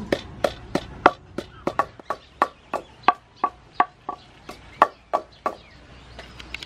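Wooden pestle pounding chilies in a wooden mortar, a steady run of dull knocks about three a second that stops about five and a half seconds in.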